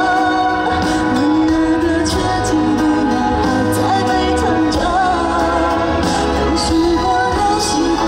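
Pop song performed by a singer with a band, a sung melody over the accompaniment and a steady beat.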